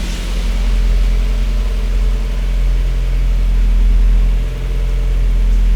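Car engine idling steadily through an aftermarket exhaust: a Maxim header, a catalytic silencer with a 58 mm inner pipe lined with punched mesh, and an RS Aizawa muffler. The idle note is quiet and even, with a deep low hum.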